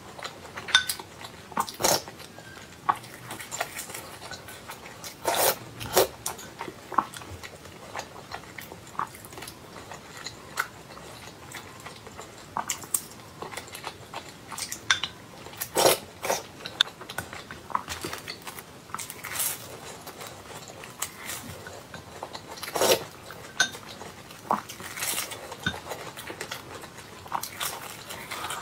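Close-miked eating of breadcrumb-coated deep-fried purple rice bread. Irregular crisp crunches from the bites are followed by wet chewing and mouth sounds.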